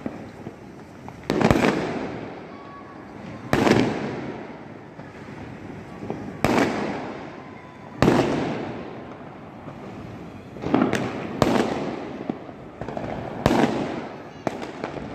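Fireworks exploding: about eight sharp bangs at uneven gaps of one to three seconds, each trailing off in a rolling echo, over constant crackling in between.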